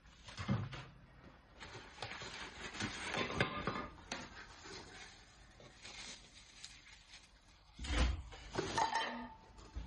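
Cookware being unpacked by hand: packaging rustling with small clicks, a thump about half a second in, and a heavier thump at about eight seconds as a die-cast pot or lid is set down, with a brief ring just after.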